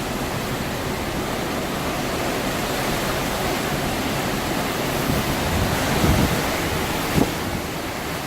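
Hurricane-force wind blowing steadily, swelling into stronger gusts that buffet the microphone about six and seven seconds in.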